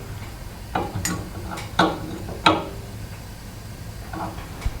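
Wrench on the lock nut of a water pressure-reducing valve as it is tightened back down: several sharp metallic clinks with a brief ring, spread over the first few seconds, then a couple of fainter ones near the end.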